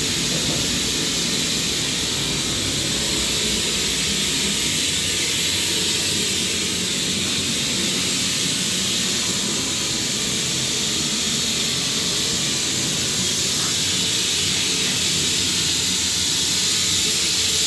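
Compressed air hissing steadily and without a break while the backhoe's rear tire tube is deliberately overinflated so that a small leak will show.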